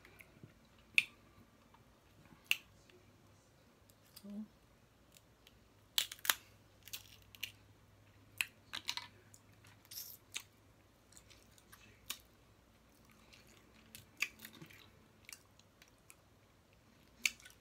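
Close-miked eating: chewing, with about a dozen sharp cracks and clicks scattered irregularly through it.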